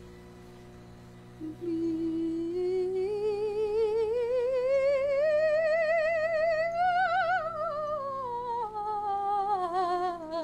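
A woman's operatic voice holding one long sung note with heavy vibrato, slowly climbing in pitch, peaking and sliding back down near the end. A steady low hum runs underneath.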